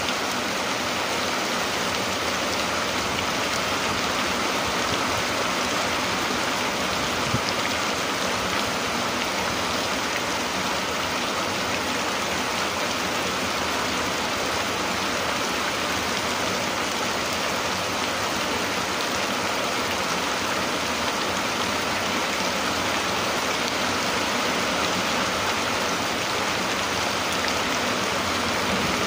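Steady rain falling, an even hiss that holds at one level without breaks.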